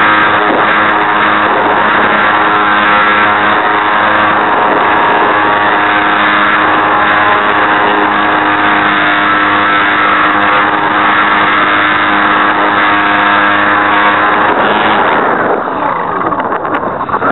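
Geared electric motor and propeller of an RC Super Cub LP airplane running steadily with a buzz, its gearbox broken, picked up by a camera on the airframe. About fifteen seconds in the steady drone drops away and wind rushing over the microphone with shifting tones takes over.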